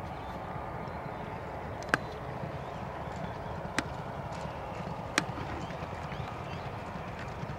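Hoofbeats of two racehorses galloping over a steady rushing background, with three sharp clicks spaced irregularly across it.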